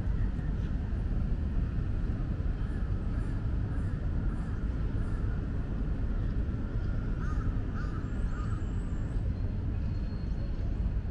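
Steady low outdoor rumble, with a few short bird calls about seven to eight seconds in.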